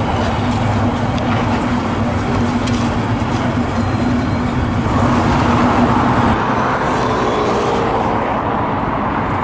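Steady road traffic noise of cars on a busy city street. A low steady hum sits under it at first and stops about six seconds in.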